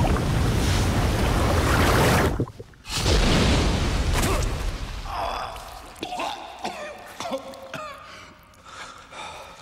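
Loud rushing of a waterfall for the first two seconds or so, then a quieter stretch in which a man gasps and pants for breath after surfacing from the water.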